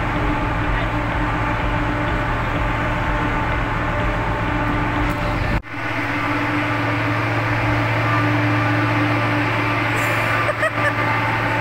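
Steady drone of a large ship's engines and deck machinery: a low hum with a few held tones. It drops out for a moment about halfway through, then carries on.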